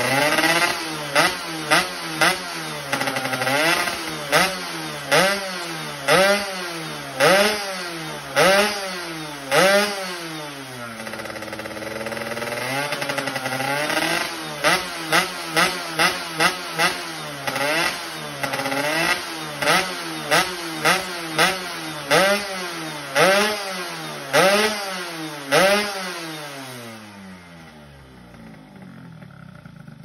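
Yamaha F1ZR two-stroke underbone motorcycle engine revved in quick, repeated throttle blips, each one rising and falling in pitch, with a couple of longer revs between them. This is the engine being tuned for the raspy 'ngorok' exhaust note. Near the end the engine drops back and quietens.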